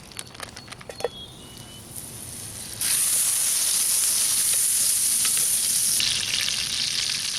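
Butter sizzling as it melts in a hot frying pan over a campfire. A few light knocks come first, then the sizzle starts suddenly about three seconds in and runs on steadily.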